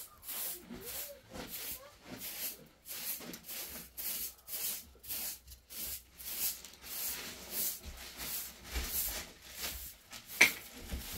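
Rhythmic swishing strokes, about two or three a second, with one sharp knock about ten seconds in.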